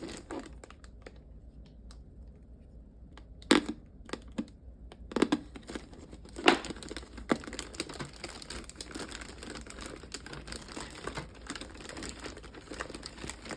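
Plastic wrapping crinkling as it is pulled off a newly unboxed machine: a few sharp crackles about three and a half seconds in, then steadier, softer crinkling.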